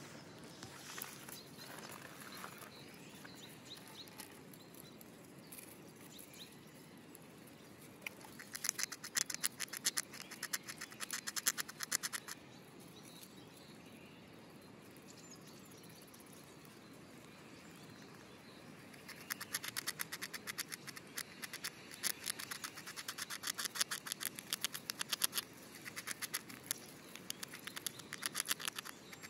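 Eurasian red squirrel gnawing a hazelnut shell with its incisors: fast, dry scraping clicks in three spells of a few seconds each, the first starting about eight seconds in.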